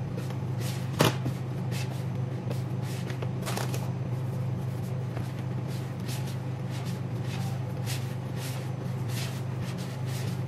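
Hands kneading bread dough in a large plastic tub while flour is worked in, making irregular scuffs and squishes of dough against the plastic, with one sharper knock about a second in. A steady low hum runs underneath.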